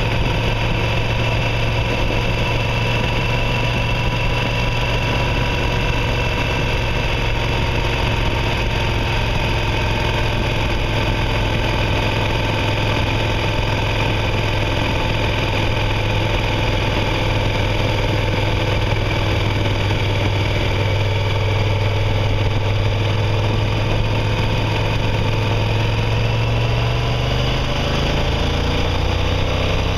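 Motorcycle engine running at a steady road speed, its pitch rising over the last few seconds as it accelerates.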